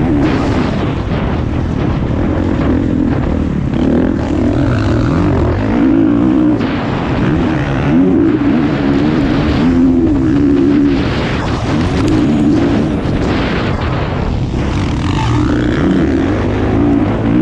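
Motocross bike engine running hard, heard from a camera mounted on the bike, its pitch rising and falling over and over as the rider works the throttle around the dirt track, with wind noise over the microphone.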